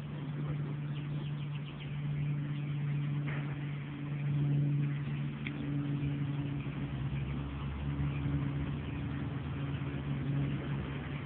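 A steady engine drone holding one low pitch.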